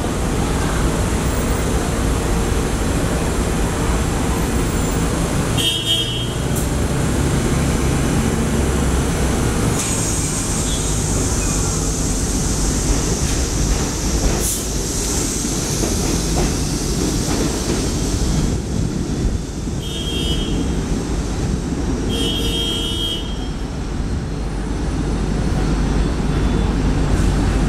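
NYC Subway R62A 7 train pulling out of an elevated station, a steady running rumble of wheels on rail, with a second 7 train coming in toward the end. Short high-pitched tones sound three times: about six seconds in, and twice near twenty seconds.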